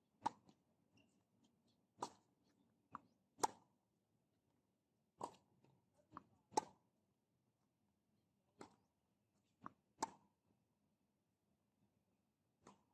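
Tennis ball struck by racket strings and bouncing on a hard court: a serve a fraction of a second in, then about a dozen sharp pops at irregular spacing through the rally, with near silence between them.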